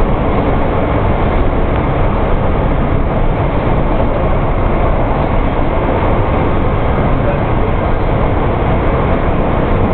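Hong Kong MTR subway train running at speed through its underground tunnel, heard from inside the carriage: a loud, steady rumble of wheels on rails.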